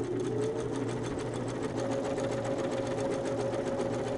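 Sewing machine stitching steadily at speed: a rapid, even clatter of needle strokes over the hum of its motor.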